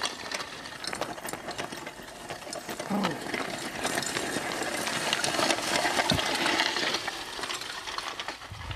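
A donkey-drawn plough scraping and crunching through dry, stony vineyard soil, with many small clicks and rattles.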